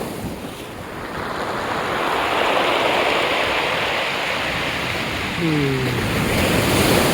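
Aegean Sea waves washing ashore, the surf swelling about two seconds in and again near the end. A brief low falling voice sound comes about five and a half seconds in.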